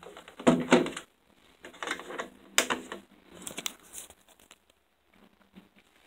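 Rustling, scraping and sharp clicks of a phone being handled close to its microphone. They come in uneven clusters, loudest about half a second in, and trail off after about four seconds.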